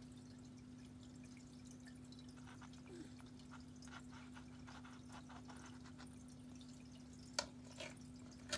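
Quiet steady hum with scattered faint light ticks and taps, and a sharper tap near the end.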